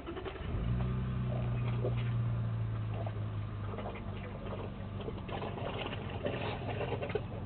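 Water splashing and dripping as African elephants drink and work the water with their trunks, over a low, steady hum that starts about half a second in and stays the loudest sound.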